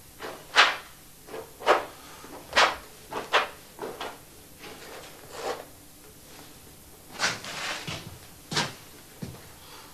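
A paintbrush swept in broad strokes across a large canvas, about a dozen short, separate scrapes and swishes, some louder than others.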